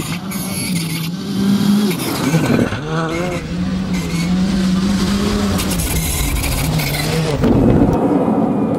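Škoda Fabia R5 rally car's turbocharged four-cylinder engine revving hard on a gravel stage, its pitch climbing and dropping through gear changes. Near the end it gives way to a louder, rougher noise.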